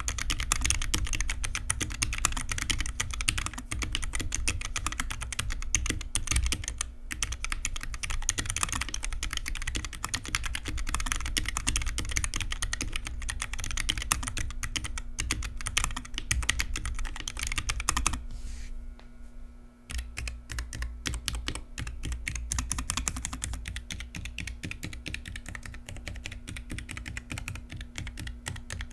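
Typing on a Keychron K7 low-profile mechanical keyboard with Gateron low-profile red linear switches: fast, dense keystrokes, with a brief pause about two-thirds of the way through before the typing picks up again.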